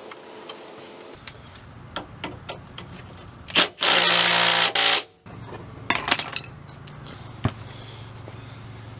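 Impact wrench run in one loud burst of about a second, around four seconds in, amid scattered clinks of tools and metal parts being handled over a low steady hum.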